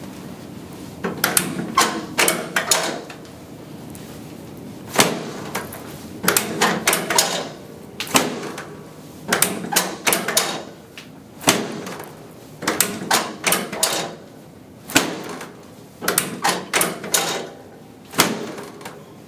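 Short clusters of sharp knocks and clicks, one cluster every one to two seconds.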